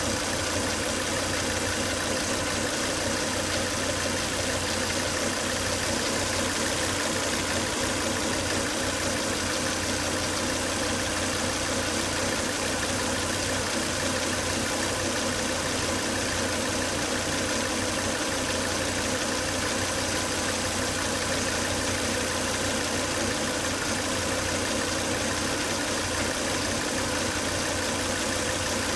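Volvo S80 2.5T inline five-cylinder turbo engine idling steadily with a whine. The owner traced the fault to excessive crankcase vacuum from a faulty breather box.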